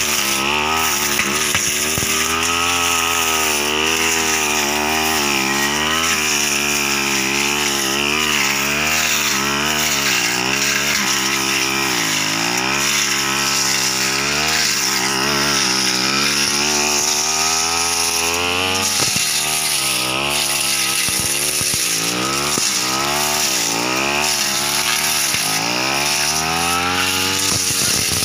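Backpack two-stroke brush cutter running hard, its engine pitch swinging up and down again and again as it cuts through dense undergrowth.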